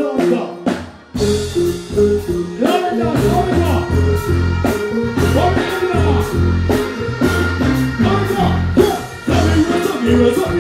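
Live dancehall band music played through a stage sound system, the heavy bass and drums kicking in about a second in, with a man singing into a microphone over it.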